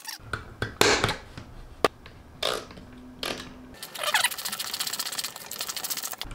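Hand screwdriver driving a short screw through a metal window latch into the hardwood desk panel. The driver tip clicks in the screw head a couple of times early on, and a creaking, grating run follows as the screw bites into the wood, densest in the second half.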